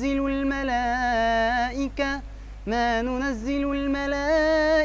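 A young man's voice chanting Quran recitation in a melodic tajweed style, drawing out long, ornamented held notes. The voice breaks off briefly about two seconds in, then takes up another long sustained phrase.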